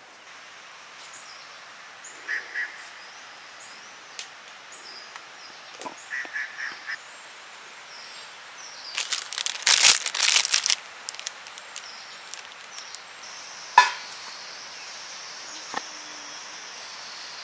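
Short clipped calls, in a pair and then a quick run of several, like farmyard fowl. About halfway through comes a louder burst of clattering, and near the end a steady hiss starts suddenly.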